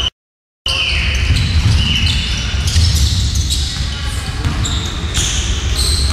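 Live game sound of a basketball being dribbled on an indoor court, in a large echoing hall, with short high squeaks from players' shoes on the floor. The sound drops out completely for about half a second right at the start.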